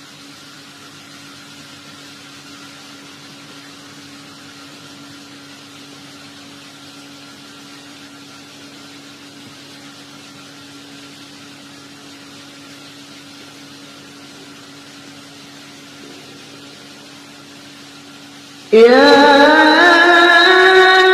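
A faint steady drone of a few held low tones, then near the end a loud chanting voice suddenly begins a long held note, gliding upward in pitch, in slow melodic Arabic recitation.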